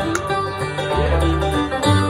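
Bluegrass band playing an instrumental break, with a five-string banjo picking the lead over guitar and upright bass.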